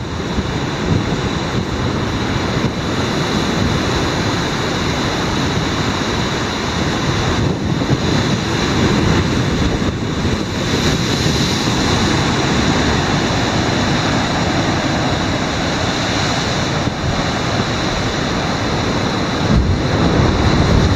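Ocean surf crashing and foaming against dark volcanic rock at the foot of a sea cliff, a loud continuous rush, with wind on the microphone adding a low rumble.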